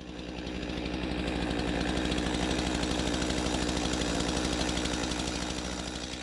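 Stihl MS 231 two-stroke petrol chainsaw running steadily, with a fast, even engine pulse.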